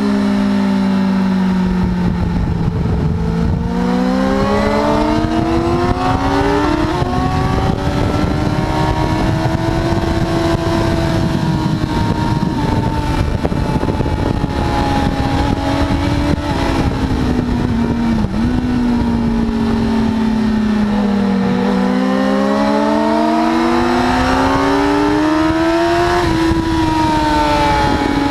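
Sport motorcycle's engine heard from on board at track speed under heavy wind rush. The engine pitch falls as the bike slows for a corner, climbs with short steps at each upshift, holds fairly steady through the middle, then falls and climbs through the gears again near the end.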